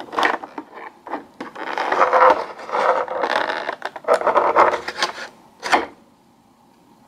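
Clear plastic blister tray of a perfume gift set crackling and scraping as it is handled, a run of irregular crinkles ending in a sharp crack near the end.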